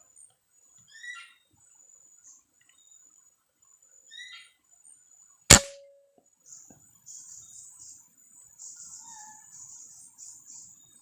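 A single sharp air rifle shot about halfway through, with a brief ring after it. Before it, a bird repeats a short call three times; after it comes high twittering over a steady high-pitched background tone.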